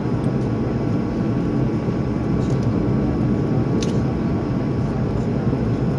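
Airbus A220's Pratt & Whitney geared turbofan engines at taxi power, heard from inside the cabin as a steady rumble with a faint whine. A short click about four seconds in.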